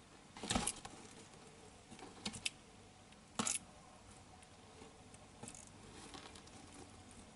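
Leopard gecko striking at and biting feeder worms on a hard plastic floor: short sharp clicks and knocks, the two loudest about half a second in and about three and a half seconds in, with a quick pair of smaller clicks between and faint ticks after.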